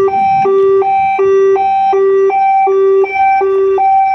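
Ambulance's electronic siren sounding a two-tone hi-lo pattern, each tone held about a third of a second.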